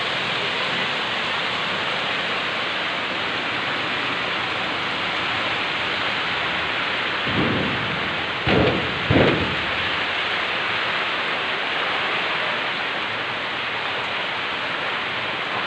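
Heavy typhoon rain pouring steadily, with three short low thumps close together about halfway through.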